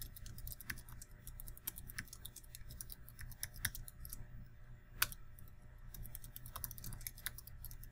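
Typing on a computer keyboard: an irregular run of light key clicks, with one louder keystroke about five seconds in.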